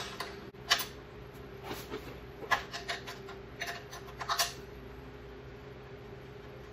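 A wrench working the engine-oil drain plug on a small OHV engine: a scatter of sharp clicks and taps as the plug is loosened, ending after about four and a half seconds, over a faint steady hum.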